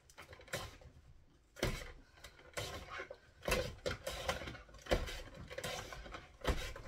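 Tupperware MandoChef plastic mandoline slicer dicing a potato. The pusher is driven over the blades in repeated strokes about once a second, each ending in a sharp plastic clack, with a scraping rasp between strokes.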